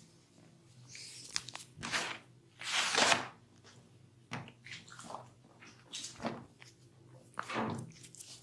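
Massage hands rubbing over bare skin in several brushing strokes, the longest and loudest about three seconds in, with a few small clicks between them.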